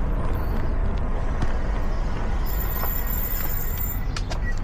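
Wind buffeting the microphone with road noise while riding along a city street, steady throughout, with a few light clicks about four seconds in.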